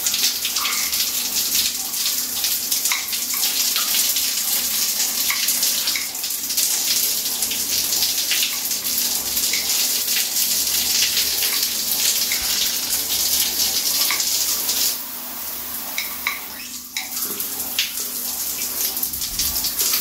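Water spraying from a freshly refitted shower head onto the tiled wall and a hand: a steady hiss that drops in loudness for a few seconds about three quarters through, then comes back up.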